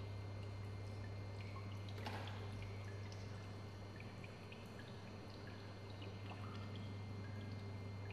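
Faint, scattered drips of water over a steady low hum, with a short louder rush of noise about two seconds in.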